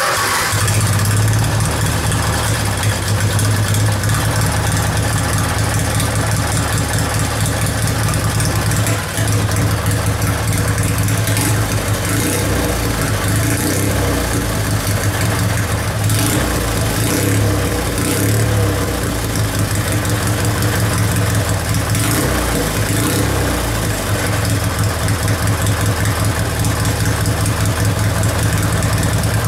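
Briggs & Stratton 16 hp opposed-twin engine of a racing lawn mower idling steadily through a custom 2.5-inch exhaust with a chrome tip.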